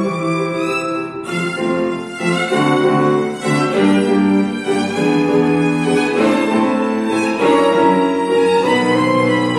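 Violin playing a classical melody of changing sustained notes, accompanied by a grand piano.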